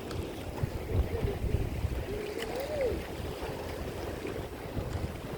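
River water rushing around a raft, with wind buffeting the microphone. A short, faint voice call rises and falls about two seconds in.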